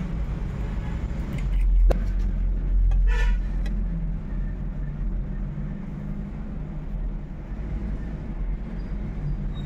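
Low engine rumble of road traffic, swelling during the first few seconds, with one sharp click just before two seconds and a brief toot-like sound about three seconds in.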